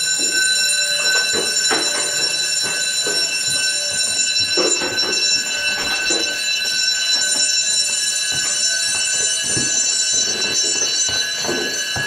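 Building fire alarm bells ringing loud and unbroken for a fire alarm test. Scattered knocks from footsteps and handling sound underneath.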